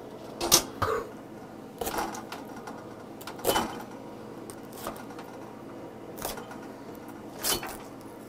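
A string of sharp clicks and knocks a second or so apart: metal tongs clicking on the grill rack, then a knife being pushed into and worked around the hard rind of a small bok-subak watermelon, which cracks as it is split open near the end.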